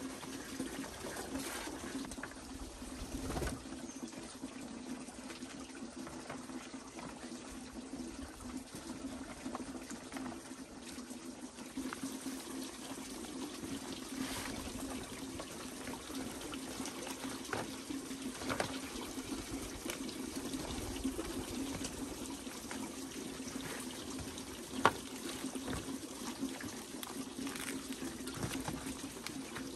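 Large dong leaves rustling and slapping softly as they are stacked, smoothed and folded on a bamboo slat floor, with scattered small taps and one sharp click about 25 seconds in. A steady running-water sound runs underneath.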